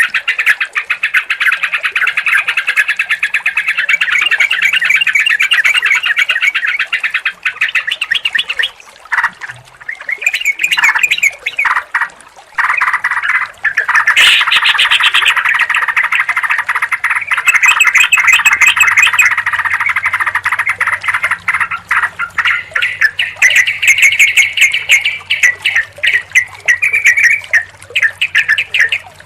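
Several yellow-vented bulbuls chattering and singing together in a dense, continuous flurry of quick notes. The flurry breaks off briefly a few times about a third of the way in, then comes back as thick as before.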